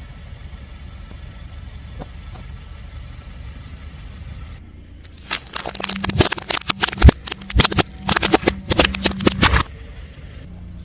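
A car's engine runs low and steady, then a car tyre rolls over crunchy objects and crushes them. About halfway through, a dense run of sharp cracks and crackles lasts about four seconds.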